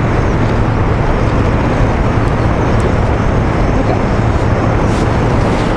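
Strong wind buffeting the microphone: a loud, steady rushing noise with a constant low rumble.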